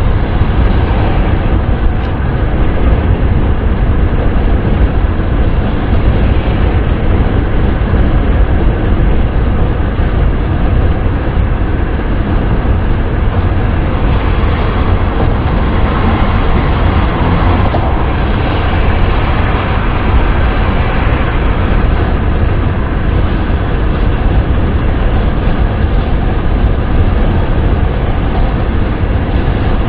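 Steady wind and road noise of a car driving: a deep, even rumble with a hiss of rushing air above it, brightening a little around the middle.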